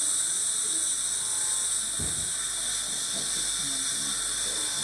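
Dental equipment hissing steadily in the patient's mouth as the teeth are cleaned.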